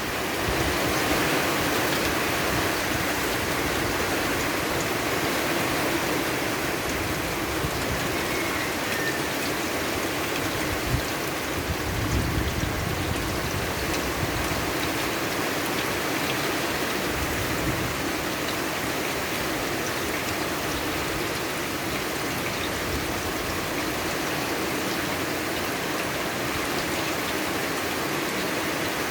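Steady rain falling, an even hiss that does not let up, with a couple of brief low knocks about halfway through.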